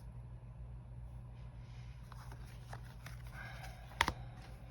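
Tarot cards being handled during a flip-through: faint rustling and sliding, with one sharp tap about four seconds in, over a steady low hum.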